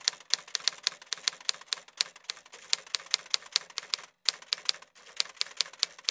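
Typewriter keys clacking in a quick, uneven run of strikes, about six to eight a second, with short breaks about four and five seconds in: a typewriter sound effect to text being typed onto the screen.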